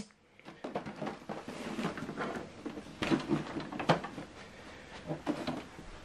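Faint scattered clicks and light knocks from a USB cable being handled and plugged into a laptop's port.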